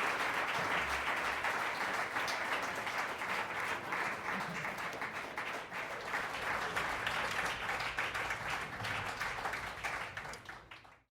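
Audience applauding and cheering at the end of a brass band's set, fading out near the end.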